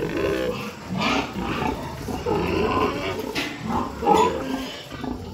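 Pigs grunting and squealing, one call after another about every second.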